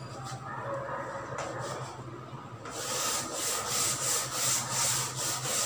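Chalkboard duster rubbed over a chalk-covered board, erasing the writing. Soft scraping at first, then from about three seconds in louder back-and-forth strokes, about three a second.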